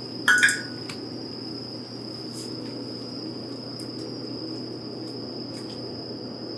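Pot of water boiling on an induction hob, a low, even bubbling under a steady high-pitched whine, as fresh udon noodles are lowered in. A brief ringing clink about half a second in, and a few faint ticks later.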